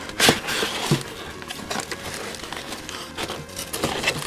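Cardboard scraping and rustling as a folded cardboard insert is slid out of a box, with a few sharp cardboard clicks and knocks, the loudest about a third of a second in.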